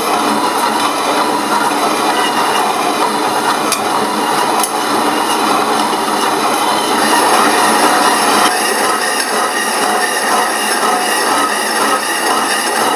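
A power saw cutting through a cast aluminium bar: a loud, continuous metallic cutting noise with several held high tones, its texture shifting slightly about two-thirds of the way through.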